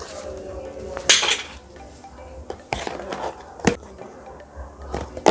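A boxed 3D pen's packaging being handled and turned over on a table: a brief rustle about a second in, then a few sharp taps and knocks.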